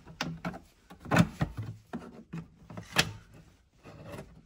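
Plastic trim clips on a 2016 Audi A3's dashboard trim panel popping as the panel is pried loose with a plastic trim tool. There are two sharp clicks, about a second in and about three seconds in, with softer knocks and rattles of the plastic between them.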